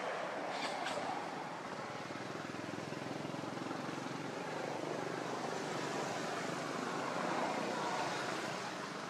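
An engine running steadily, swelling and fading slowly in loudness, with a couple of brief clicks in the first second.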